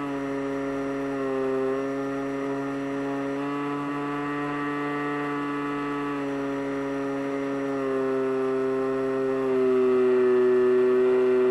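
Electric motor and propeller of an FPV Raptor model plane running steadily, a droning tone whose pitch shifts up and down in small steps several times as the motor speed changes. It gets louder for the last couple of seconds.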